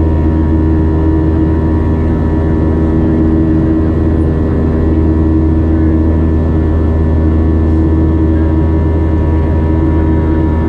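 Cabin noise of a Boeing 737-700 climbing out after takeoff, its CFM56-7B turbofan engines at climb thrust. A loud, steady low rumble carries a constant hum and a few steady whining tones, heard from inside the cabin beside the engine.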